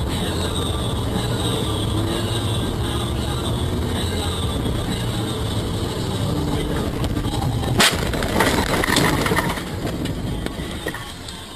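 Road and engine noise inside a car on a wet highway, then a single loud bang of a collision about eight seconds in. The bang is followed by a second or so of rushing, scraping noise as the car slews and is sprayed, after which it goes quieter.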